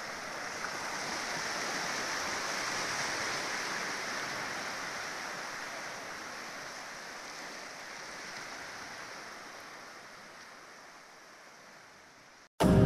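A steady rushing noise, like wind or surf, swells over the first few seconds and then slowly fades away. Music with a beat cuts in right at the end.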